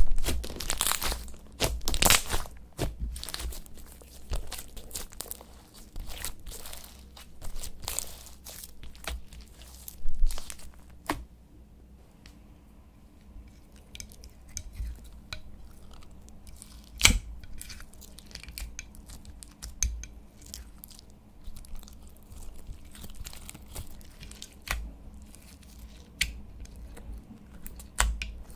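Slime being kneaded, stretched and torn by hand, making irregular sticky pops, crackles and tearing sounds. They are densest and loudest at the start, with single sharper snaps further on.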